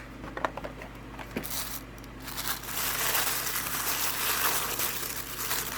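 Toy packaging crinkling and rustling as items are taken out of a box: a few light clicks and taps at first, then steady crinkling from about two seconds in.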